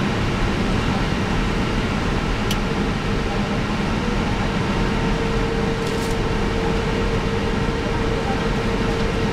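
Steady flight-deck noise of an Airbus A319 on the ground with its engines running at idle: an even rush of air conditioning and cooling fans with a steady hum, one tone of which grows stronger about three seconds in. A couple of faint clicks.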